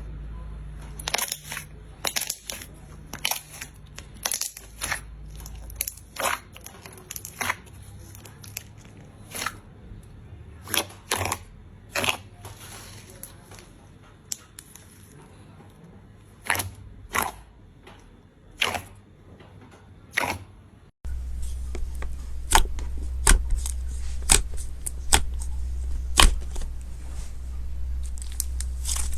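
Slime being pressed and squished by hand, giving irregular sharp pops and clicks. About two-thirds of the way in it cuts to another slime clip with denser, louder crackling over a low hum.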